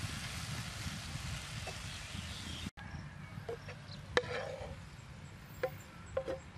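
Stir-fry sizzling in a frying pan on a portable gas stove, the hiss slowly dying down. Partway through it cuts to a quieter stretch of a metal spatula scraping and clicking against the pan as the food is scraped out onto a plate, a few sharp clicks spaced out.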